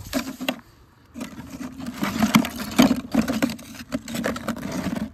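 A plastic bucket of homemade sugar bricks being handled, with repeated scrapes and knocks as the hard bricks and the bucket rub against each other and the wooden hive stand, loudest a couple of seconds in. A low steady hum runs underneath.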